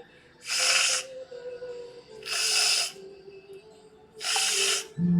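A man's voice sounding the Spanish 'j' (jota) three times: a breathy, hissing rasp about half a second long, repeated about every two seconds. Soft background music with a steady tone plays underneath.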